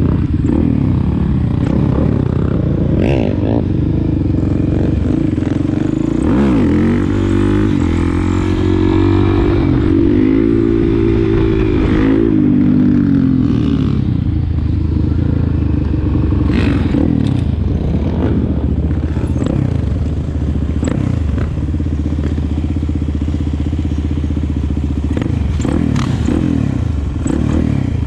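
Motorcycle engine running steadily, its pitch rising and falling several times between about six and thirteen seconds in as it is revved, with scattered clicks and rattles.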